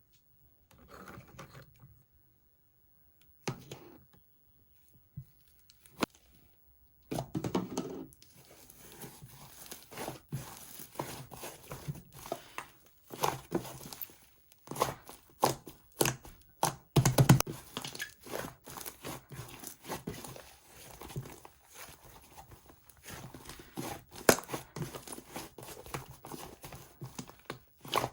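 Slime being squeezed, stretched and folded by hand, making sticky crackling and many small pops and clicks. It is sparse for the first several seconds, then continuous from about seven seconds in.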